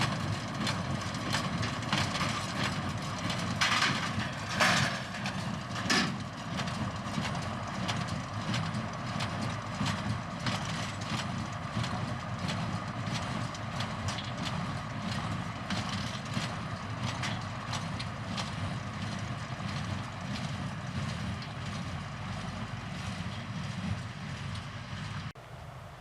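Tractor-drawn hay baler at work: the tractor engine drones steadily under the clatter of the baler's mechanism, a run of knocks and clicks. The sound drops away sharply near the end.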